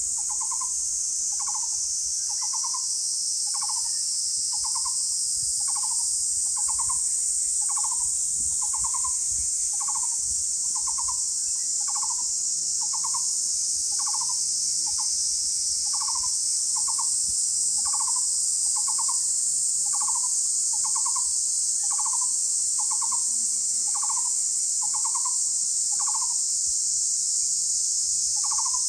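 A small owl calling: short pulsed hooting notes, repeated a little faster than once a second and sometimes in pairs, over a steady high-pitched drone of night insects.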